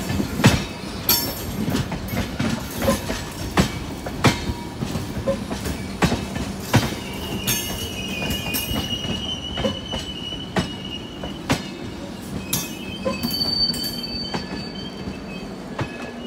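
Passenger coaches of a departing express train rolling past, their wheels clacking over rail joints about once or twice a second. Wheel squeal rises over them in thin high tones, one held for a few seconds about halfway through and a shorter, higher one near the end, over a steady low hum.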